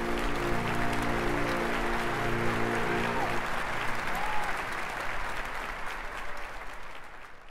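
Crowd applauding over a sustained musical chord; the chord stops about three and a half seconds in and the applause fades out toward the end.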